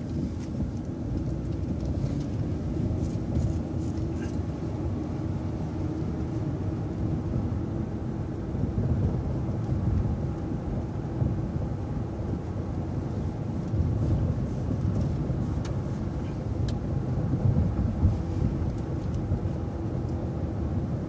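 City transit bus driving: a steady low engine and road rumble, with a few faint clicks and rattles.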